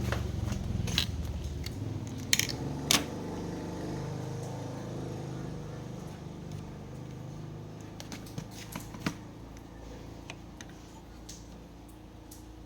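Scattered light clicks and taps of small hand tools and parts being handled, a few sharp ones in the first three seconds and a cluster about two-thirds through, over a steady low rumble that slowly fades.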